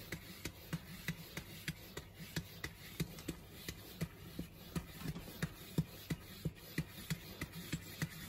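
A cat clawing at cardboard: a steady run of short scratching strokes, about three a second.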